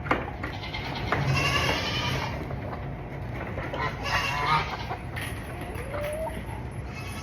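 Goats bleating: two long, wavering bleats, one about a second in and another about four seconds in, with a shorter rising call near the end.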